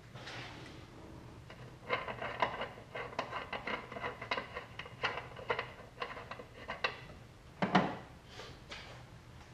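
A quart bottle of motor oil being handled and emptied into the engine: a run of quick, irregular clicks and clatters for about five seconds, then one louder thump near the end.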